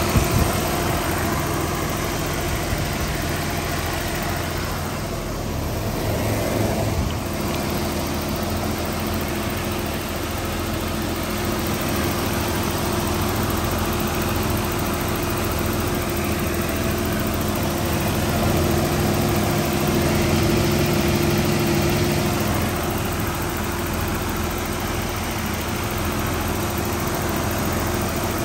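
1983 BMW E23 733i's 3.2-litre straight-six idling steadily, heard from over the open engine bay.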